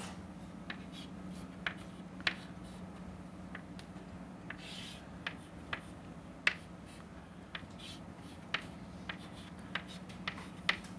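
Chalk on a blackboard: irregular sharp taps and a few short scrapes as marks are drawn, over a steady low hum.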